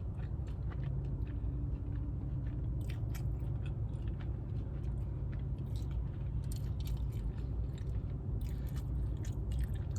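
Chewing and biting into crispy fried chicken strips and fries, with clusters of crunchy bites about three seconds in and again in the second half, over a steady low hum.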